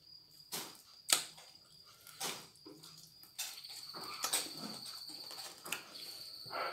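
Close-up eating sounds of chicken wings being gnawed and sucked from the bone: irregular wet mouth smacks and chewing. A faint steady high-pitched tone comes in about halfway through.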